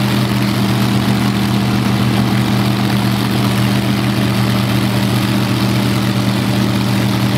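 Multi-engine modified pulling tractor idling steadily at the end of its pull, a constant low engine note that holds an even pitch.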